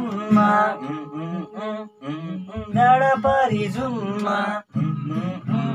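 Young men's voices singing a Nepali song in phrases, with short breaks between them, over an acoustic guitar.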